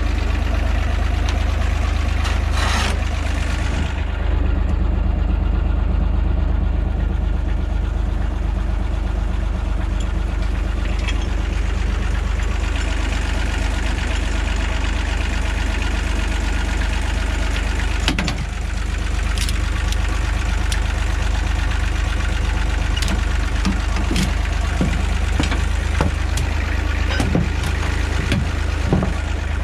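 An engine running at a steady idle, with occasional sharp knocks and clanks, the clearest about three seconds in and again past the middle.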